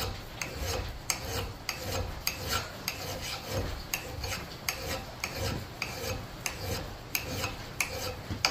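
Steady back-and-forth strokes of a hand file across the steel bit of a double bit axe, about two rasping strokes a second, sharpening the edge and working out a small nick.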